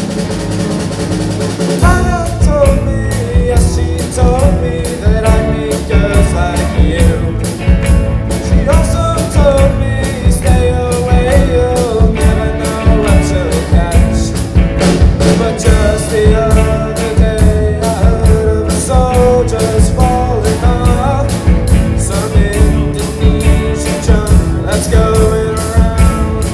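Rock band playing live: drum kit, bass and guitars, with a bending lead melody line on top. The drums come in hard about two seconds in, with regular hits from then on.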